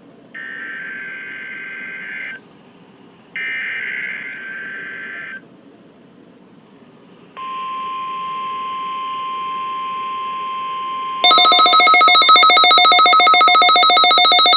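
NOAA Weather Radio test alert. First come two bursts of SAME digital header data, warbling data tones about two seconds each. About seven seconds in, the steady 1050 Hz warning alarm tone starts, and about eleven seconds in a louder, rapidly pulsing electronic alarm beep comes in over it.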